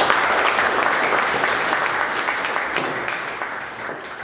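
Audience applauding: many hands clapping together, the applause gradually dying away.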